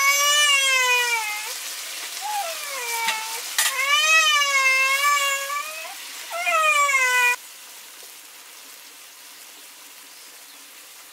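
Food sizzling as it fries, under a series of loud, long, high-pitched wavering cries that break off abruptly about seven seconds in, leaving only the sizzle.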